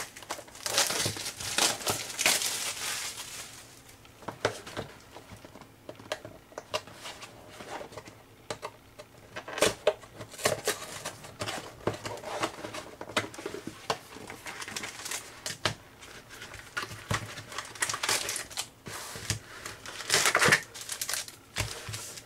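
Cellophane shrink-wrap being torn and crumpled off a trading-card hobby box, with irregular crinkling and small clicks from the cardboard box and foil card packs being handled. The crinkling is loudest about a second in and again near the end.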